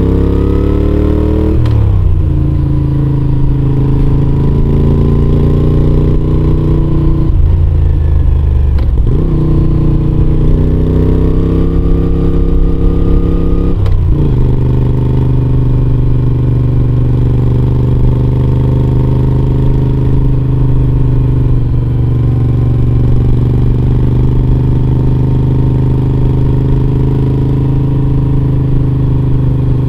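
2021 Moto Guzzi V7 850 Special's transverse V-twin, breathing through a Mistral short conical exhaust with dB killers in, under way on the road. The engine pitch rises and then drops with a gear change about two seconds in. It dips and climbs again around a third of the way through and changes once more near halfway, then holds a steady cruise.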